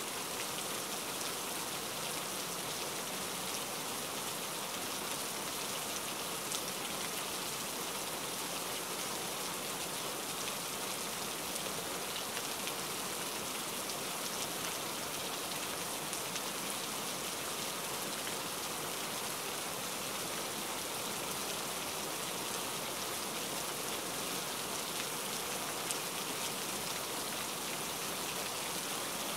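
Steady rain falling on leaves: an even hiss with scattered ticks of single drops.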